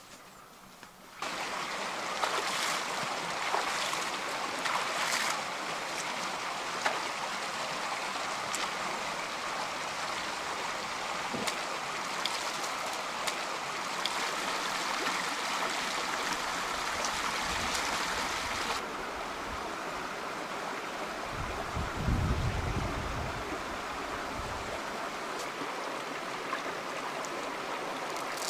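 Shallow, stony river running, a steady rush of water over rocks, with a few sharp clicks in the first half. About three-quarters of the way through, a low rumble for a few seconds.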